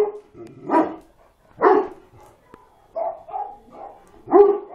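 Dog barking: a run of about seven short barks, roughly a second apart at first and coming quicker near the end.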